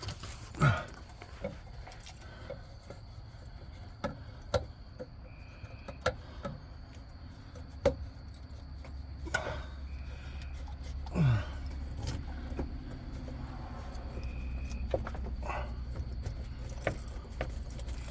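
Scattered clicks and metal clinks of band clamps and a rubber hose being handled and worked back onto a pipe, over a low steady hum. Two short falling squeals stand out, one right at the start and one about eleven seconds in.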